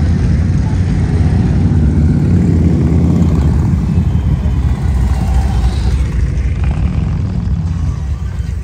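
Motorcycle engines running, a loud, steady low sound that eases off slightly near the end.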